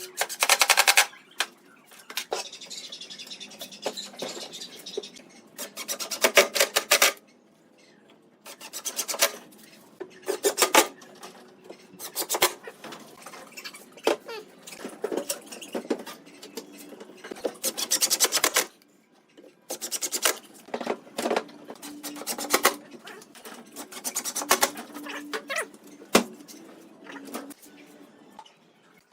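Wood being worked by hand: short bursts of quick rasping, rubbing strokes, stopping and starting about a dozen times.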